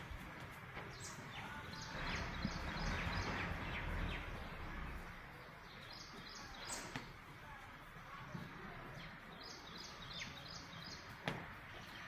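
Outdoor farm ambience with small birds chirping in several short runs of quick high chirps. A low rumble swells a couple of seconds in and fades by about six seconds, and there is a single sharp click near the end.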